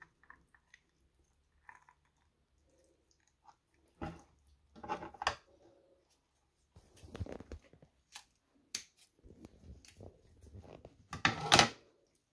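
Wet squishing and crunching as a perch is gutted by hand and its entrails worked loose, in scattered short bouts with quiet gaps, the loudest crunch near the end.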